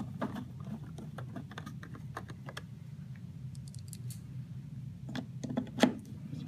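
Light clicks and ticks of a screwdriver driving screws into the clear plastic top cover of a Gaggia Brera's bean hopper, with a few louder knocks near the end.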